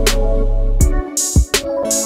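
Background music with a steady drum beat and bass. The bass drops out briefly around the middle.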